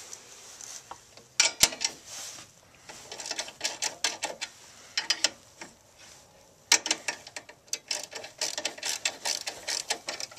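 Metal clicks and scraping in bursts as the counterweight on a Nelson horse waterer's valve is loosened, slid out along its slot and tightened back down.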